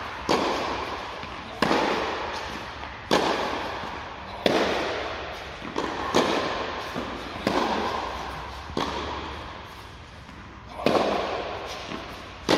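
Tennis ball being struck with a racket in a steady forehand rally, a sharp pop about every second and a half, each one ringing on in a long echo through the covered indoor court. There are about nine hits, with a short break near the end.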